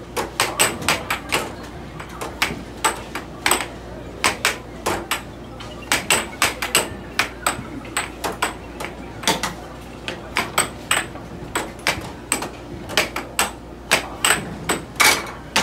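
Air hockey puck and mallets clacking in a fast rally: a quick, uneven run of sharp clacks, several a second, with brief pauses between bursts.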